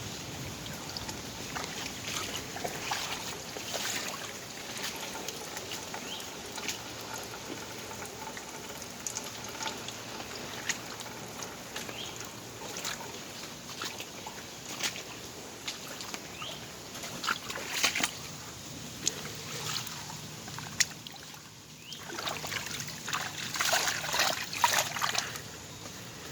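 Water splashing and sloshing in irregular bursts, with a denser, louder stretch of splashing near the end.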